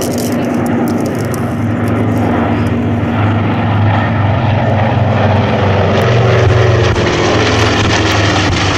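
Radial-engined WWII twin bombers, a Lockheed C-60A Lodestar and a B-25 Mitchell, making a low formation pass with their propeller engines running. The sound grows louder to a peak about two-thirds of the way through, and the engine pitch drops as the aircraft go past.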